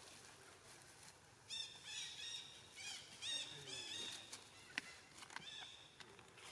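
A run of short, high, chirping animal calls, each rising and falling in pitch, repeated many times from about a second and a half in to about four seconds, with a couple more a little later. A single sharp click comes just before five seconds.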